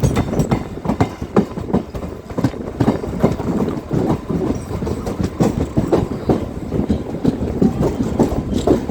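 Train wheels rolling on the rails close up: a continuous low rumble with a rapid, irregular run of clacks and knocks as the wheels pass over the track.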